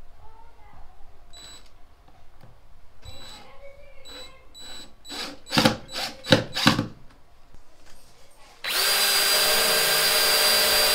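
DeWalt cordless drill driving a drywall screw through plastic J-channel into the wall, running steadily with a whine from about nine seconds in. A few short loud bursts come a few seconds before it.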